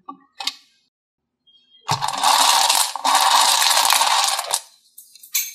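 Small shiny beads clattering in a metal muffin tin cup as a hand digs and stirs through them, a dense rattle lasting about two and a half seconds, preceded by a couple of light clicks.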